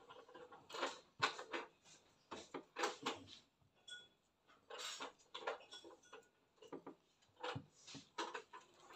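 Silicone spatula scraping and knocking against a glass mixing bowl while thick macaron batter is folded, in irregular strokes.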